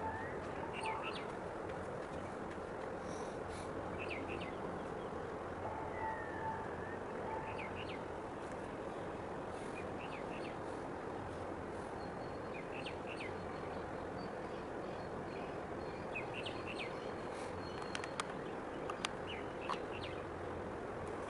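Small birds chirping in short, scattered calls over a steady background rush of outdoor noise.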